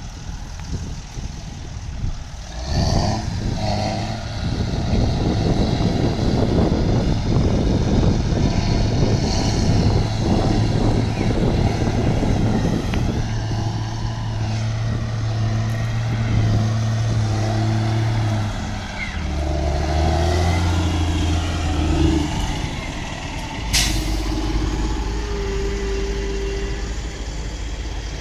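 Heavy tractor diesel engines, a Kirovets K-700A and a Caterpillar MT765 crawler, running hard under load while dragging a trailer sunk to its frame out of a bog. The engine note shifts in pitch in the second half, and there is one sharp click near the end.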